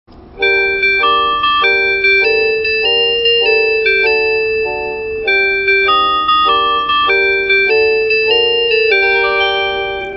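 Onboard announcement chime of a HOT7000 series 'Hakuto' limited express train: an electronic keyboard-like melody of short, evenly paced notes that starts suddenly and plays for about ten seconds, its last note ringing on as it fades.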